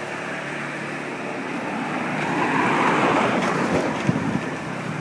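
A motor vehicle labouring up a steep hill, its engine straining. It passes close, swelling to its loudest about three seconds in and then easing off.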